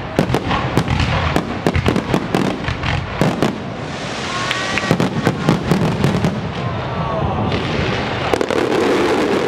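Fireworks going off in quick succession: many sharp bangs and pops over dense crackling, with a few short whistles about halfway through.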